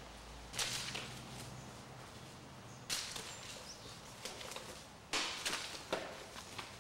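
Slow, widely spaced footsteps crunching underfoot, about two seconds apart, with a quicker pair of steps near the end.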